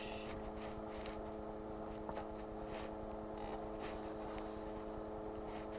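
A steady low electrical hum, made of several even tones, with a few faint ticks and rustles over it.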